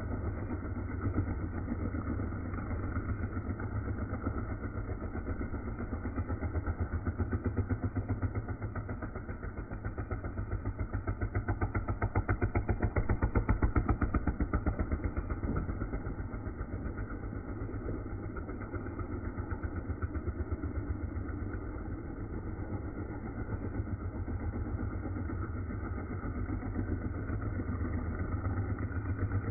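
Small motorcycle engine running hard as the bike circles the vertical wooden wall of a wall-of-death drum. The sound rises and falls as it goes round and is loudest about halfway through, when the bike passes close.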